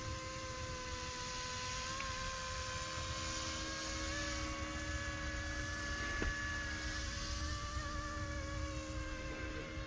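Small electric RC scale helicopter in flight: its motor and rotors give a steady whine of several pitches that waver slightly. There is a single click about six seconds in.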